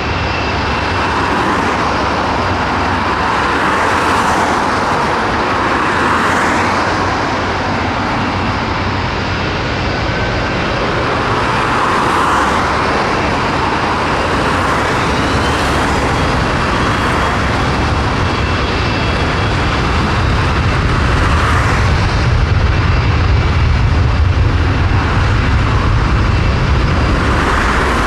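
Road traffic passing close by in a steady stream, cars and larger vehicles swelling and fading one after another. A deeper rumble builds over the last several seconds as a double-decker bus and a van go past.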